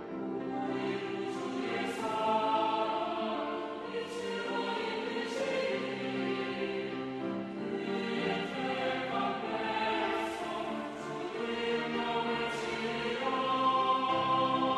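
Church choir singing an anthem in several parts together, sustained notes moving from chord to chord.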